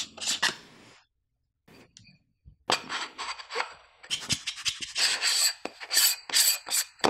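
Fingers rubbing and turning the ridged metal rim of a round camera lens filter: a couple of brief scrapes at the start, then from a little under three seconds in a dense run of short, scratchy rasping strokes.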